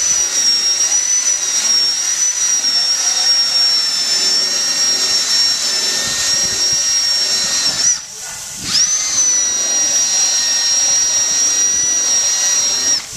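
Cordless drill spinning a foam polishing pad against a plastic headlight lens: a steady high motor whine with a hiss of the pad on the lens. It stops for under a second about two-thirds of the way in, rises back up to speed, and cuts off near the end.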